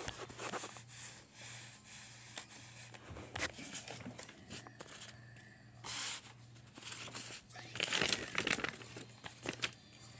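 Irregular rustling and crinkling of paper with small taps and handling noises, loudest about six seconds in and again around eight seconds in, over a faint steady low hum.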